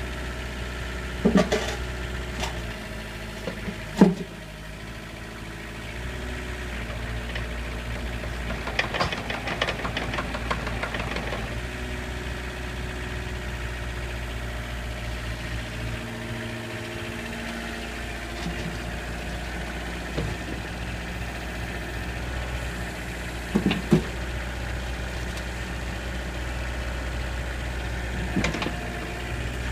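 Kubota KX101 mini excavator's diesel engine running steadily, with several sharp knocks and a spell of rattling clatter about nine to eleven seconds in.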